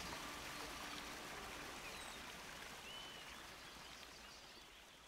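Faint outdoor ambience: a steady rushing hiss with a few short bird chirps, fading out toward the end. The last faint tones of music die away in the first second.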